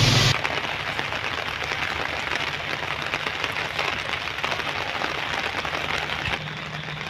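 Steady crackling patter of light rain outdoors. A low steady hum joins near the end.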